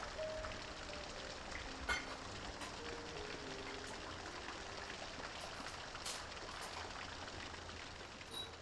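Steady rain falling, an even hiss, with a single sharp tap about two seconds in. Faint, slow music notes step downward over the first half.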